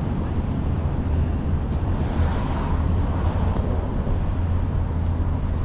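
Steady low rumble of street traffic, swelling about two seconds in as if a car passes.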